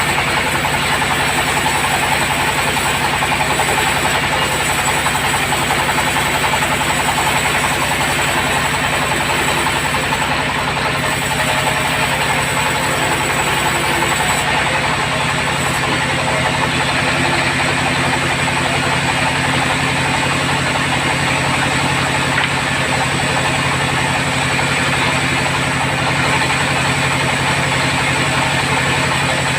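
Sawmill bandsaw running steadily: a constant, loud machine drone with a hissing blade noise. About halfway through, the tone shifts slightly, with less hiss and a stronger low hum.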